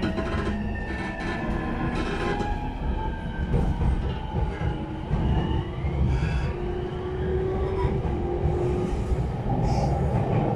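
JR East E231-1000 series commuter train heard from inside the car as it gathers speed, with its renewed traction equipment in use. The inverter and traction motors whine in several tones that glide up and down in pitch over the steady rumble of the wheels on the rails.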